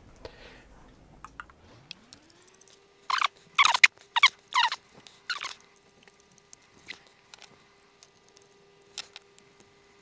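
Small screwdriver turning out the screws that hold a 2.5-inch laptop hard drive in its metal caddy: a run of short scratchy clicks and squeaks from about three to five and a half seconds in, then a few faint ticks. A faint steady hum comes up about two seconds in and holds.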